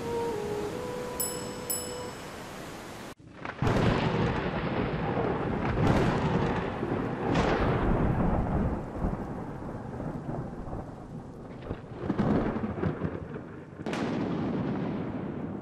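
Thunderstorm: a steady rain hiss drops out about three seconds in. Then thunder cracks and rolls over the rain, with five sharp claps that each rumble away.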